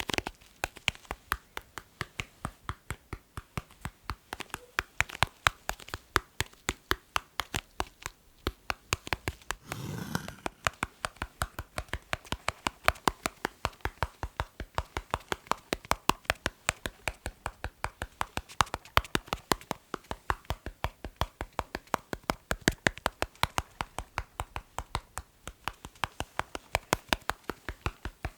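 ASMR tapping by hand: quick, crisp taps on an object, several a second in a running pattern. About ten seconds in there is a short rubbing sound.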